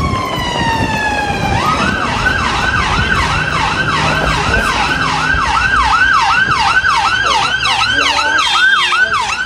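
Emergency vehicle siren on a city street: a slow falling wail that switches, about a second and a half in, to a fast yelp rising and falling about twice a second, over low traffic noise.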